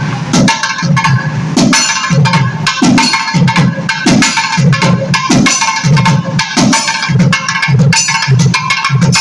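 Tamil folk temple drumming: a hand-played double-headed barrel drum in a steady rhythm, deep strokes about twice a second with sharp, bright strikes in between.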